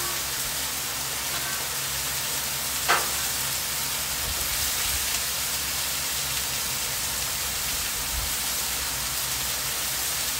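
Chicken and mushrooms sizzling steadily on a hot Blackstone flat-top griddle, with one short clink of the metal spatula about three seconds in.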